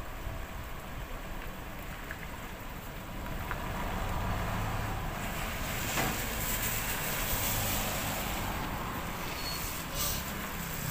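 A road vehicle passing close by: engine hum and tyre noise swell about four seconds in and stay loud.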